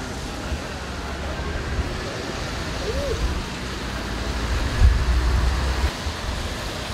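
Steady noise of motorway traffic on a wet road, with a low rumble that swells for about a second near five seconds in.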